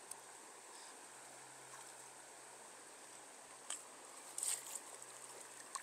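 Faint running stream water, with a few short splashes about three and a half to five seconds in.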